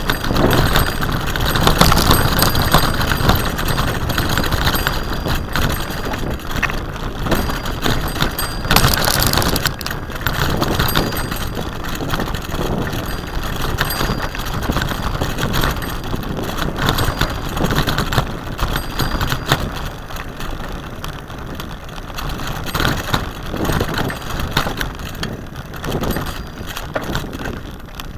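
Bicycle ridden along a rutted dirt track: a steady rushing noise of tyres and air, with frequent small knocks and rattles as the bike goes over bumps.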